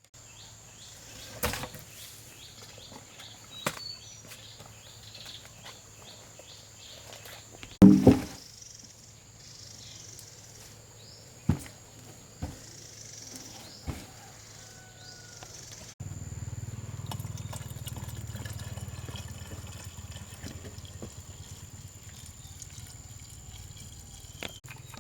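Quiet outdoor background with scattered knocks and clicks, one louder thump about eight seconds in; a low steady hum comes in about two-thirds of the way through.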